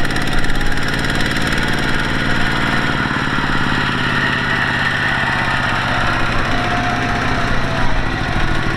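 A heavy machine's diesel engine running steadily, with an even chugging beat.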